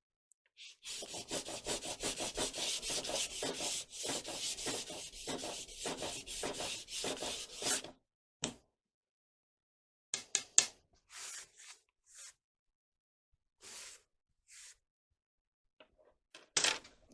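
Sandpaper being rubbed back and forth by hand in quick, even strokes, sanding away excess glue. It stops abruptly about eight seconds in, followed by a few short scrapes and light knocks.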